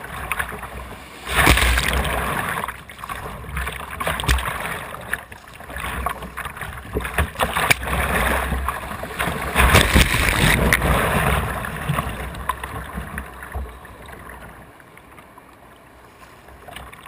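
Whitewater rapids rushing and splashing around a kayak's bow, heard close up. There are two louder surges, one about a second in and another around ten seconds in, and the sound eases to a quieter wash near the end.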